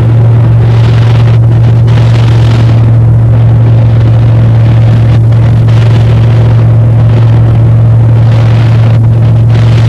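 Small plane's engine droning steadily, heard from inside the cabin: a loud, even low hum with rushing air noise that swells and fades above it.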